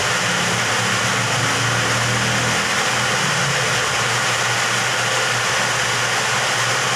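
A machine running steadily: a low hum under a loud, even hiss, with no change throughout.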